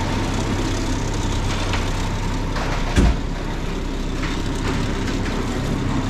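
Ready-mix concrete mixer truck's diesel engine running steadily, with a single thump about halfway through.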